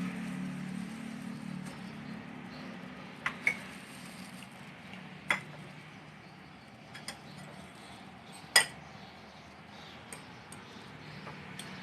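Dishes and utensils clinking: about nine short, sharp clinks at uneven intervals, the loudest about eight and a half seconds in, over a low steady hum.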